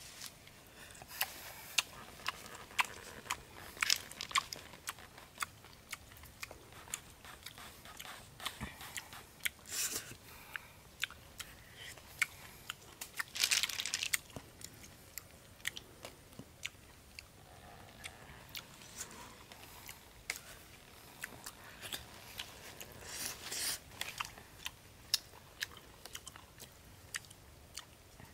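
Small snail shells clicking and crunching as they are handled and worked open by hand, in many quick sharp clicks. A few short bursts of rustling leaves come and go.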